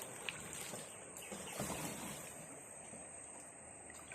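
Faint outdoor ambience of flowing stream water under a steady high-pitched insect drone.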